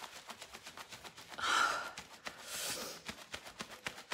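A woman's breathy gasp about a second and a half in, then a short hissing breath, with faint clicks throughout. It is pained breathing after a mascara wand has poked her eye.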